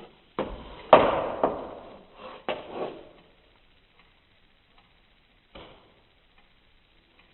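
Slowed-down thumps and knocks from a cat at play, about four sharp hits in the first three seconds, each trailing a long, drawn-out echo; after that only a few faint taps and one more soft knock near the end.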